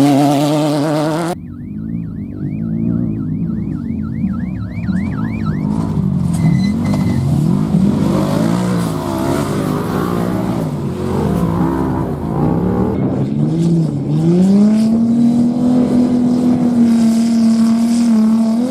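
Off-road race vehicle engines running hard and passing, with the engine pitch rising and falling. After an abrupt cut about a second in, a faint rapid chirping repeats about four times a second for some four seconds. Near the end an engine climbs in pitch and holds a steady high note at full throttle.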